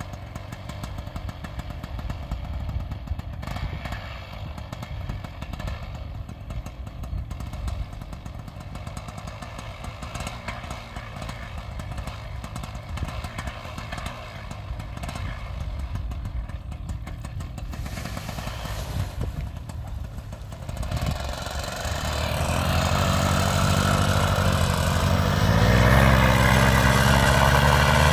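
Paramotor engine and propeller idling with a low, uneven rattle, then throttled up about three quarters of the way in: the pitch climbs and it settles into a much louder, steady full-power run for the takeoff.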